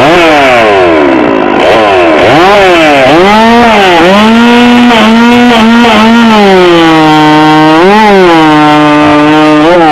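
Two-stroke gas chainsaw at full volume, blipped up and down several times, then held at high revs. Its pitch drops from about seven seconds in as the chain bites into the log under load, with one brief rise near eight seconds.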